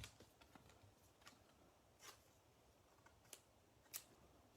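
Near silence, broken by a few faint, brief clicks and swishes of trading cards being handled and slid past one another.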